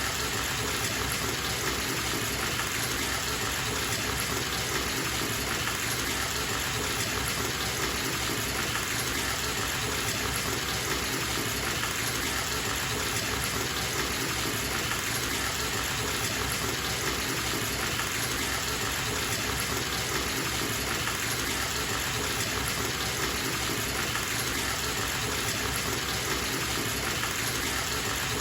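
Bathtub tap running full, water gushing and splashing into the tub as it fills, a steady even rush that does not change.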